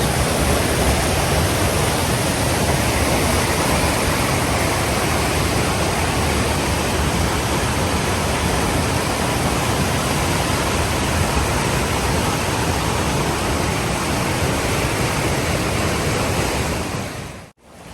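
Fast-flowing spring-fed river water rushing, a steady loud noise with no letup; it cuts out abruptly near the end.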